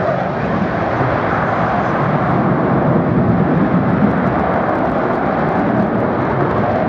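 Twin Pratt & Whitney F119 afterburning turbofans of an F-22 Raptor running at high power in afterburner during a tight display manoeuvre: a loud, steady jet noise.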